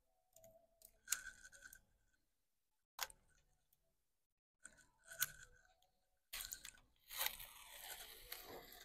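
Bicycle packaging being handled: faint, intermittent crinkling and rustling of wrapping, with a sharp click about three seconds in and a longer spell of rustling near the end.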